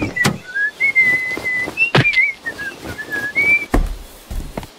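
A person whistling a short, wandering tune in held notes, with three sharp knocks in between.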